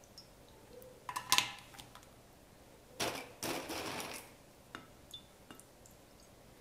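Handling sounds of coffee-soaked biscuits being dipped and laid in a glass baking dish: a clink against the glass about a second in, then a short scraping rustle around three to four seconds in, with a few faint ticks after.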